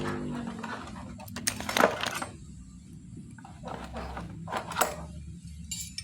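Small brush-cutter (grass trimmer) engine running low at idle, with a series of sharp metallic clinks and rattles.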